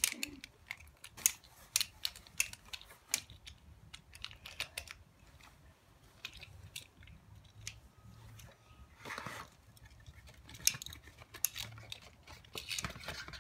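Quiet, irregular light clicks and rattles of hard plastic: Beyblade tops and their launchers being handled and fitted together.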